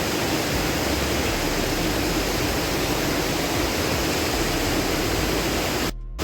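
Mountain river rushing, a steady noise of flowing water. It drops out abruptly for a moment near the end.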